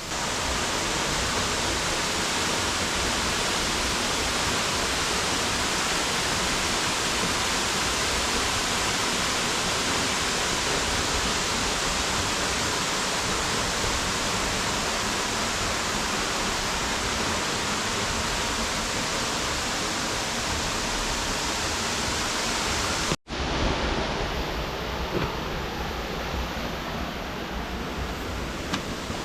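Greeter Falls waterfall: a steady, dense rush of falling water. It cuts out for an instant about 23 seconds in, then carries on a little softer and less hissy.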